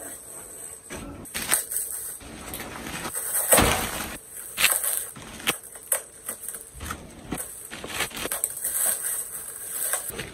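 Plastic stretch wrap and packing wrap crinkling and rustling in irregular bursts as they are cut with scissors and pulled off a monitor box.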